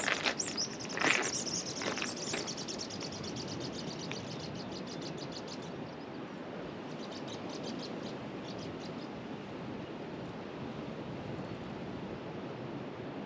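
Steady hiss of wind and sea on an open shore, with a few knocks in the first two seconds and a fast, high ticking that runs for about five seconds and comes back briefly a little later.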